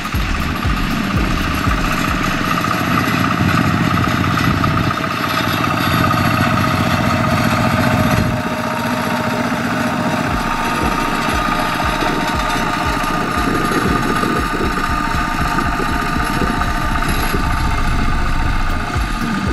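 Single-cylinder diesel engine of a two-wheel walking tractor running steadily while it pushes a straw rake through the stubble, with a regular low beat.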